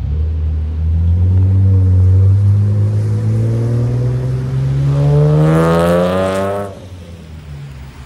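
A motor vehicle's engine accelerating close by, its note rising steadily for about six and a half seconds and getting louder and brighter as it comes past, then cutting off suddenly.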